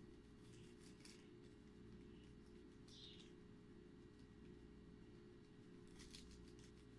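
Near silence over a steady low hum, with faint rustling and light clicks as hands handle a bundle of wired LED modules, and a short high squeak about three seconds in.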